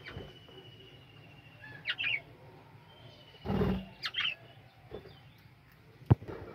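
Budgerigars chirping, with two long thin whistles and sharp chirps about two and four seconds in. A brief low rustle comes a little past halfway, and a sharp click, the loudest sound, comes near the end.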